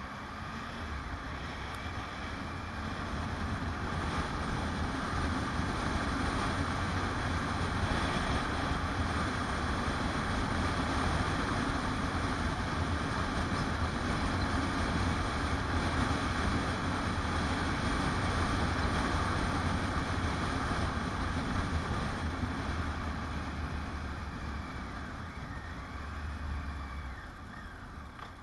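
Motorcycle on the move: wind rushing over the microphone over the engine's low running note. It builds over the first few seconds and eases off in the last few seconds as the bike slows.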